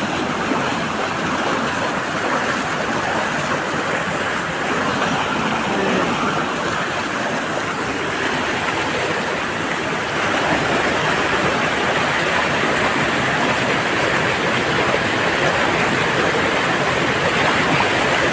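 Clear mountain stream rushing over rocks below a waterfall: a steady roar of running water that grows a little louder about ten seconds in.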